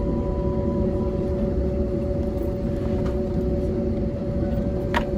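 Steady cabin hum inside an Airbus A320neo taxiing slowly into its stand, engines at idle, with two steady tones over a low rumble. A single sharp knock comes about five seconds in.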